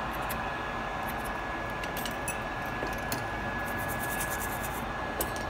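Faint, short scratches and clicks of a small metal blade and hand tools worked on a bench mat, over a steady background hiss with a thin steady whine.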